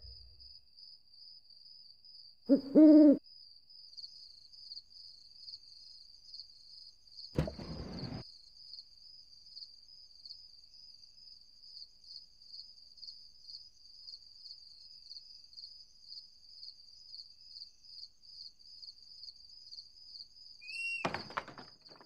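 Crickets chirring steadily in a high, pulsing tone. About two and a half seconds in, a loud two-part owl hoot. A short noisy rush comes around seven and a half seconds in.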